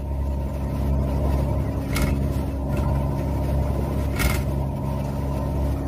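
Motor yacht's engines running steadily under way, with two short splashes as the hull meets the swell, about two and four seconds in.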